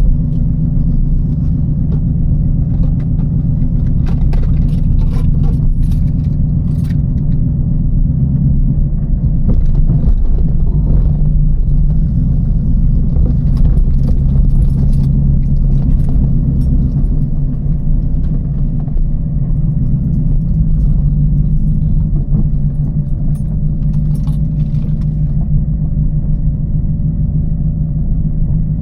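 The TVR Chimaera's 4.65-litre V8 (a bored-out Rover V8 with a race cam and the pre-cats removed) running under way, a steady deep engine-and-exhaust drone that swells and eases slightly with the throttle. Light clicks and rattles from inside the car sit over it, thickest about four seconds in and again near the end.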